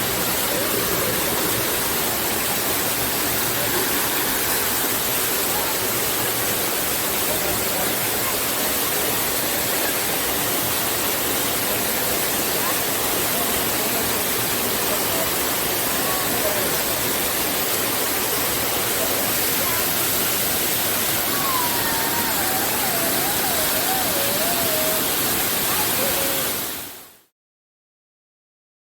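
Waterfall: a steady, even rush of falling water that fades out to silence near the end.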